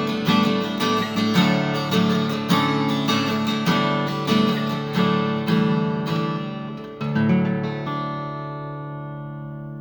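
Guitar closing out a hymn accompaniment: strummed chords about twice a second, then a final chord about seven seconds in that is left to ring and fade away.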